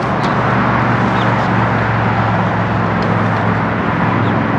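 The boat's outboard motors running steadily: a constant low engine hum under a broad, even rush of noise.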